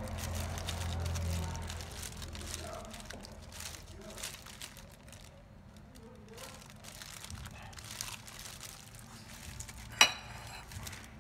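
Plastic glove crinkling with soft wet squelches as small fish are rubbed and turned in a thick marinade paste in a mortar. A single sharp clink with a brief ring near the end.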